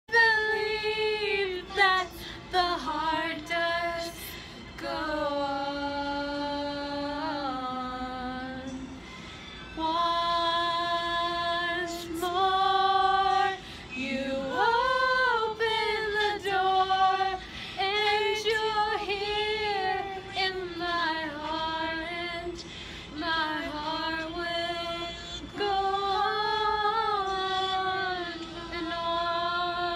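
A woman singing a song without words the recogniser could catch, holding long notes that glide up and down between pitches.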